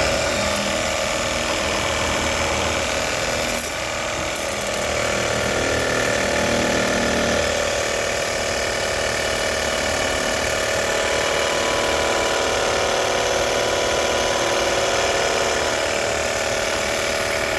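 Split air conditioner outdoor unit running, compressor and condenser fan together: a steady mechanical hum with several held whining tones, after its overheated compressor has been cooled down.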